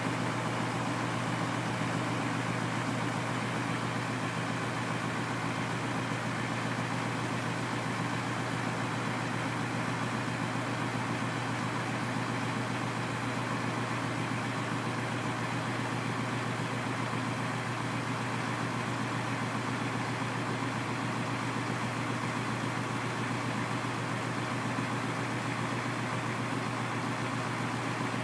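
Semi tractor's diesel engine idling steadily, driving the hydraulic hoist that tips up the end dump box; a constant low hum with no change in engine speed.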